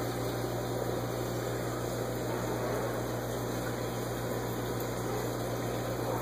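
Saltwater aquarium equipment running: a steady low hum with an even rush of moving water.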